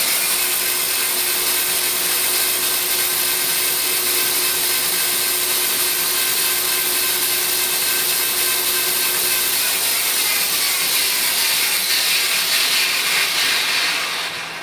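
Bandsaw sawmill running free on its new 2 hp, 1800 RPM electric motor, driven by two V-belts on a homemade wooden pulley friction-fitted to the shaft: a loud, steady mechanical running noise that winds down and fades near the end as the power is cut. The owner thinks the belts are slipping, the older belt being less tight.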